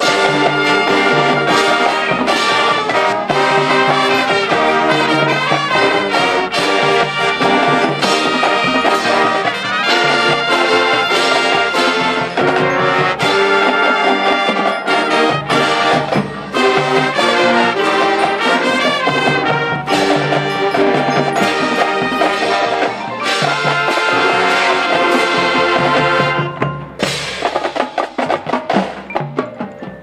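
Marching band playing: brass section (trumpets and trombones) with drums and front-ensemble percussion, held full chords; about 27 seconds in it breaks into a run of short, punched hits.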